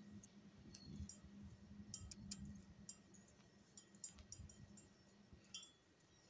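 Near silence with faint, scattered short high-pitched chirps or clicks over a low steady hum that fades out near the end.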